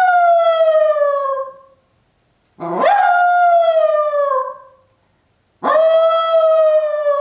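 Miniature poodle howling: three long howls about three seconds apart, each sliding slowly down in pitch, the second swooping up from low at its start. Separation howling of a dog left alone at home.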